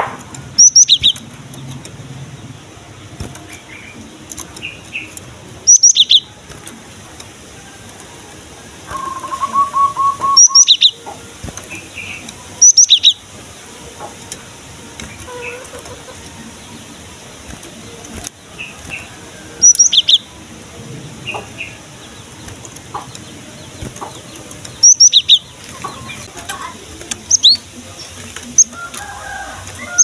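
Caged cinereous tit (gelatik batu) calling: loud, sharp, high-pitched short notes, each burst a quick pair, repeated every few seconds, with wing flutters as it hops about. A brief lower trill is heard about a third of the way in.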